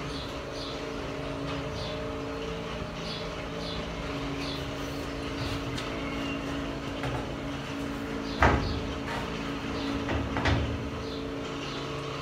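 Metal knocks from a new door skin being pressed into place on a classic Mini Clubman door. There is a sharp knock about eight seconds in and a softer one about two seconds later, over a steady low hum.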